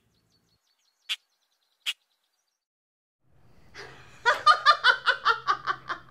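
Two short, high bird chirps a little under a second apart, then a woman laughing loudly in a string of quick, even 'ha-ha' pulses.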